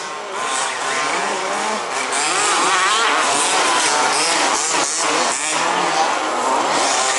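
Several 1/5-scale RC buggies' small two-stroke petrol engines revving up and down as they race, overlapping, getting louder about two seconds in.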